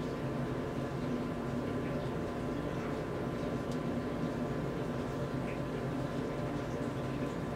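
Steady electrical-mechanical hum with a constant hiss, holding several fixed tones, and a few faint ticks.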